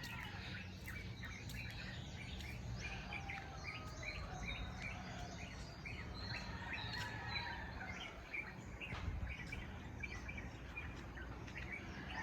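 A flock of small birds chirping in a tree in the morning, many short overlapping calls without a break, over a steady low hum.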